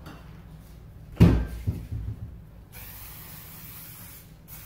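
A solid thump and a couple of lighter knocks about a second in, then about a second and a half of aerosol cooking spray hissing onto a metal baking tray.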